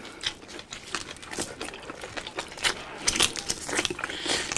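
Close-up eating sounds: irregular mouth clicks, smacks and sucking as a man gnaws meat and marrow off a boiled beef shank bone.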